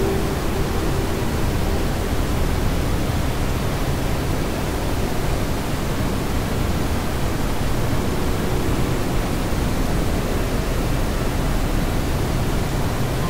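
Steady rushing noise, even and unbroken, strongest in the low end, from a noise track in a multitrack audio project. Faint steady tones sit under it near the start and again about eight seconds in.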